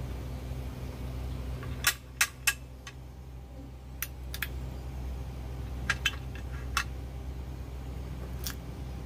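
Hard pangi (kepayang) seeds and the steel lever tool that cracks them clicking and knocking as they are handled: three sharp clicks about two seconds in, then a few lighter ones, over a steady low hum.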